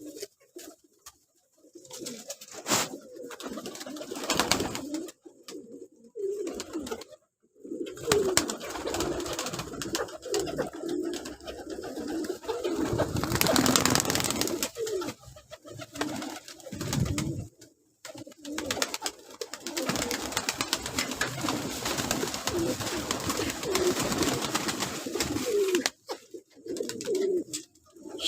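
Several domestic pigeons cooing over and over, low rolling calls overlapping, with a few brief silent breaks.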